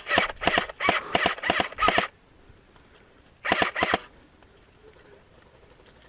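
Airsoft gun firing: a quick string of shots for about two seconds, a pause, then a short burst of about four shots halfway through.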